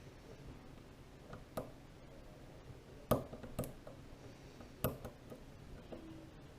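Scattered sharp clicks and taps of lock-picking tools working in a Kwikset Smartkey padlock, four clear ones and a few fainter, at uneven intervals.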